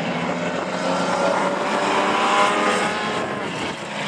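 Engines of two dirt-track race cars running hard at speed. The engine note rises and grows louder about two seconds in, then eases.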